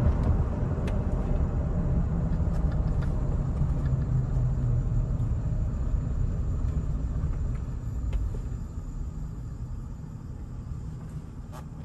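In-cab engine and road rumble of a 2003 Toyota Tacoma pickup under way, a steady low drone that dies away over the last few seconds as the truck slows.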